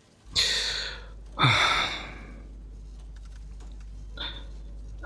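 A man's breath drawn in sharply, then let out in a heavy sigh that falls in pitch, with two softer breaths later, over a low steady hum.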